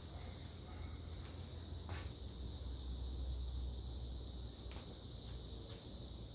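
Hunter Original ceiling fan with its oil-bath motor running steadily at medium speed: a low hum and rush of air, with a steady high-pitched hiss over it and a few faint ticks.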